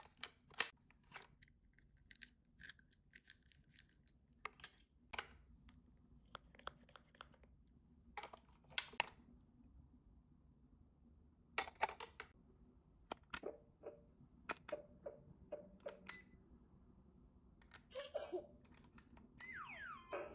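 Light, irregular clicking and clattering of small die-cast toy cars being handled and knocked together, with a brief buzzing and a short falling tone near the end.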